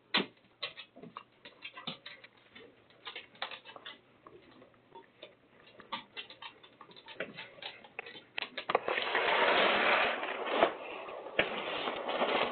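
Hurricane rain tapping irregularly on a window and screen. About nine seconds in, a rush of wind-driven rain swells for a couple of seconds, eases, then carries on more softly.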